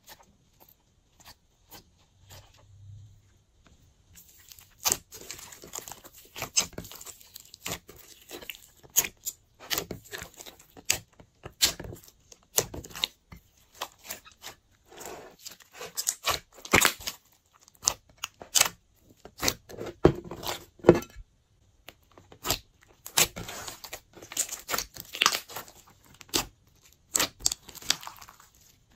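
Glossy slime being kneaded, stretched and pressed by hand, giving rapid irregular sticky clicks, pops and crackles. It starts faintly, then becomes dense from about four seconds in.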